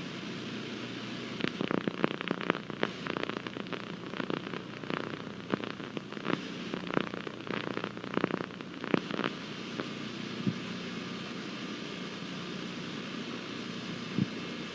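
Faint hiss with a long run of irregular crackles and pops, thinning out to a few single clicks near the end.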